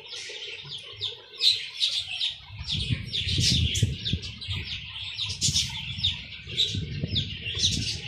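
Budgerigars and young chicks chirping: a quick, continuous run of short, high calls. A low rumble joins in about three seconds in.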